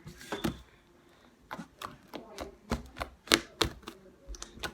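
Fluffy shaving-cream slime being squeezed and stretched by hand, trapped air popping and clicking in irregular snaps, with the loudest snap a little past the middle.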